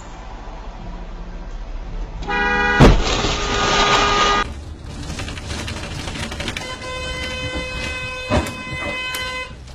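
A car horn blares as the hatchback ahead reverses into the recording car, and a sharp bang of the impact comes about half a second after the horn starts. The horn keeps sounding for about two seconds over crunching noise. Later a second horn blast is held for about three seconds, broken by a thud.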